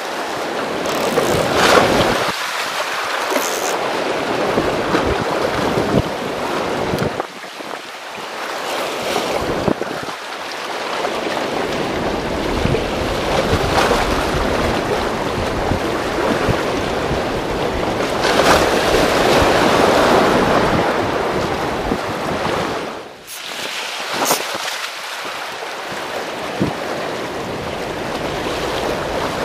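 Sea surf washing against a concrete tetrapod breakwater, mixed with wind gusting on the microphone. The wash swells and eases, with a louder surge about two-thirds of the way through.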